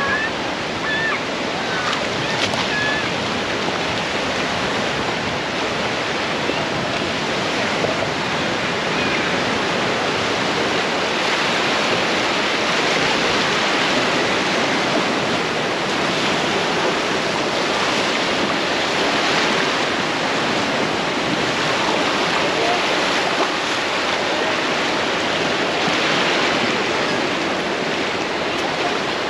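Ocean surf breaking and washing up a sandy beach in a steady rush that swells every few seconds.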